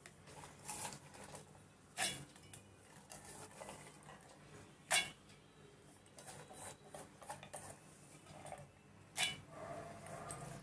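Soaked chana dal being tipped and scraped by hand from a steel bowl into a stainless steel mixer-grinder jar. The lentils patter faintly, and there are three sharper metal clinks, about two, five and nine seconds in.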